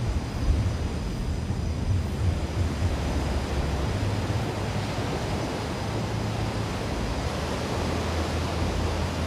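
Steady rush of ocean surf breaking on a beach, with wind buffeting the microphone in a deep, uneven rumble.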